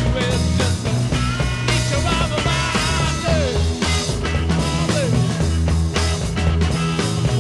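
Rock music with a steady beat and bass line, laid over as a soundtrack.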